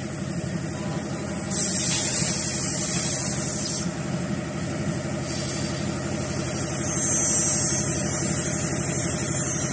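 CNC machine with an automatic tool changer cutting aluminum: a steady machine hum, with a loud high hiss coming in twice, from about a second and a half in to about four seconds, and again from about seven seconds on.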